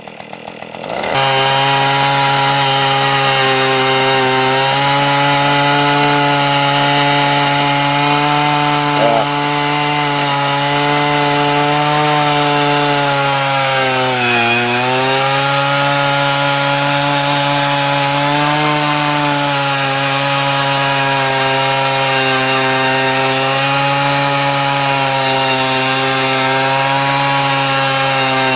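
Earthquake E43 one-man post-hole auger's 43cc two-stroke engine. It runs slowly at first, then revs to a steady high speed about a second in as the bit drills into the ground. Its pitch sags briefly under load near the middle, then recovers.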